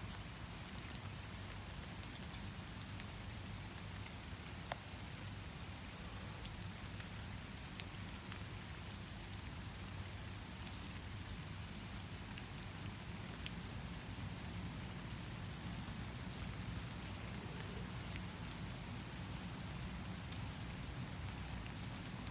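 Steady rain falling, with fine drop patter and a sharper tap about five seconds in.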